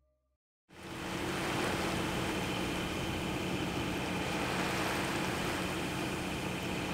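A boat under way on calm water: a steady hum with a rushing hiss, starting suddenly under a second in after silence.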